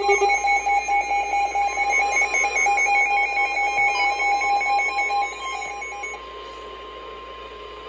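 Emergency Alert System attention tone: a loud electronic alarm of several steady tones that drops away about five to six seconds in, leaving one fainter tone.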